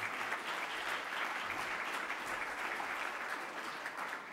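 Audience applauding: many people clapping together steadily, easing off slightly near the end.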